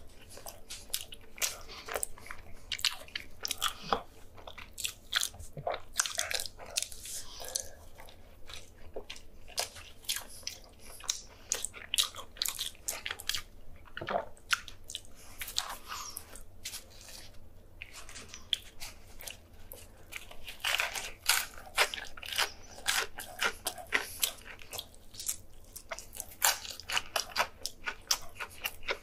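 A man biting and chewing fried chicken sandwiches and biscuits, with frequent crunching and irregular crackly mouth noises.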